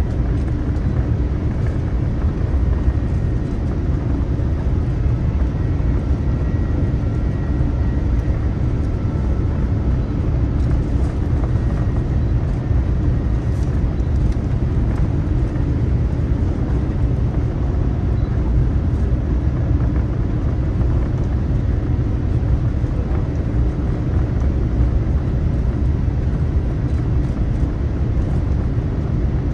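Steady low rumble of an Air Premia Boeing 787-9 in flight: engine and airflow noise as heard in the passenger cabin, unchanging throughout.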